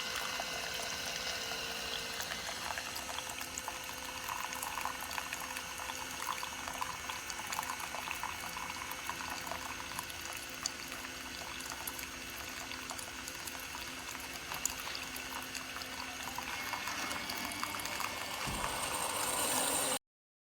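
Keurig K-Mini single-serve pod coffee maker brewing: hot coffee streaming and gurgling into the cup, with a faint steady hum beneath. It cuts off abruptly near the end.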